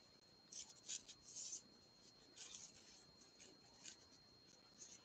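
Faint, intermittent scratchy rustles of a crochet hook and yarn as stitches are worked, in short clusters a second or so apart.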